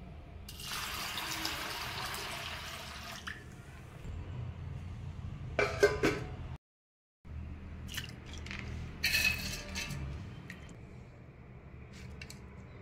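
Water pouring and trickling off soaked urad dal in a steel vessel for about three seconds. About six seconds in, steel utensils clink sharply, and around nine seconds there is a short burst of wet dal being scooped by hand against the steel of a mixer jar.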